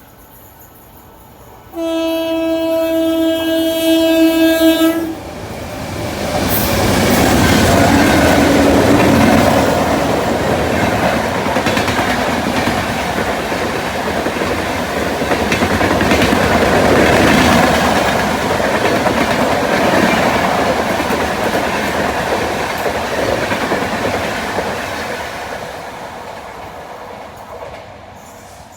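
An Indian Railways electric locomotive sounds its horn in one steady chord lasting about three seconds. An express train then passes at speed, its wheels clattering over the rail joints, and the sound fades away near the end.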